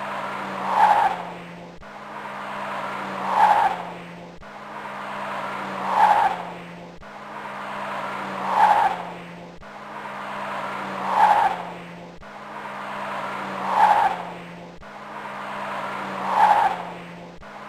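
Car rolling slowly on a flat tyre: the deflated tyre rubs and squeals in a swell that peaks about every two and a half seconds, over a steady low hum.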